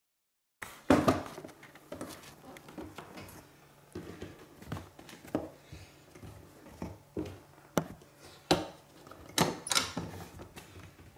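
Hands working the red plastic grille door of a cat carrier: an irregular run of clicks, knocks and rattles as the door is handled and opened, with the sharpest knocks about a second in and near the end.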